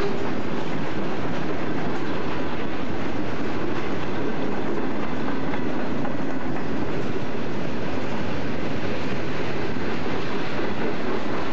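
Freight train's boxcars, covered hoppers and tank cars rolling past, a steady, loud noise of steel wheels on the rails that doesn't let up.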